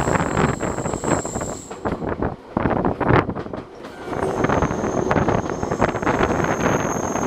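Nankai Koya Line electric train running, heard from on board: wheels rumbling and knocking over the rails, with a thin high steady squeal from the wheels that fades out about two seconds in and comes back a little after four seconds.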